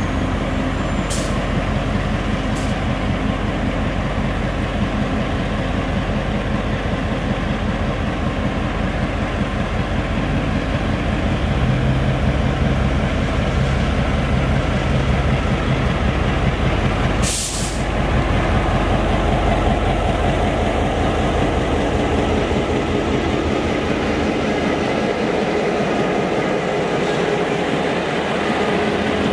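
Taiwan Railways R100-class diesel-electric locomotive pulling out under power with a train of passenger cars and passing close by, its diesel engine a steady low drone. A brief burst of hiss about halfway through.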